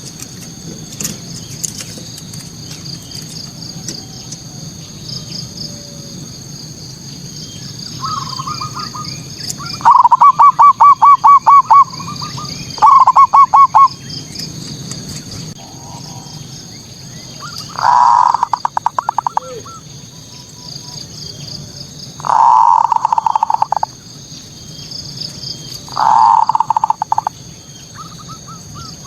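Zebra dove (perkutut) song: several bouts of rapid, staccato cooing notes, each a second or two long, over a steady high-pitched chirring in the background.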